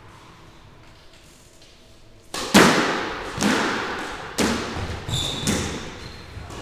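Squash rally: the ball cracking off rackets and the court walls about once a second, each hit ringing in the hard-walled court, beginning after about two and a half seconds of quiet. Brief high squeaks of shoes on the court floor come near the end.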